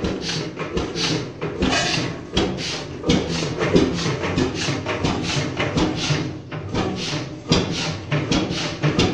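1928 Beijer 13 hp single-cylinder two-stroke hot-bulb oil engine running slowly with an even beat of firing knocks over a low hum. Its fuel pump is turned down but it is still turning over, a little too fast to settle into rocking back and forth at 0 RPM.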